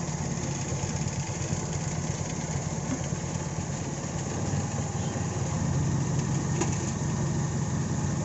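Carburetted Toyota 4A-FE four-cylinder engine idling steadily after a start, now starting readily after work on its hard starting; it gets a little louder about halfway through.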